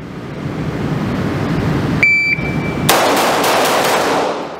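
Shot-timer start beep about two seconds in, then a rapid string of about six pistol shots from an Oracle Arms 2311 Compact, ringing in an indoor range.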